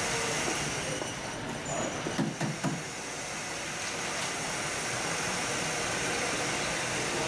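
Shopping-centre ambience: a steady hum and hiss of the mall's ventilation and machinery, with a few brief, faint voices of shoppers about two seconds in.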